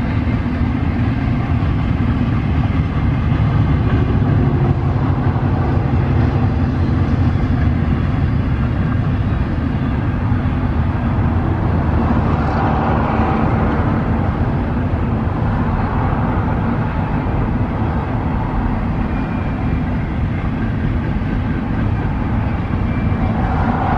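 Double-stack container cars of a BNSF intermodal freight train rolling across a bridge: a loud, steady low rumble of wheels on rail, swelling a little about halfway through and again near the end.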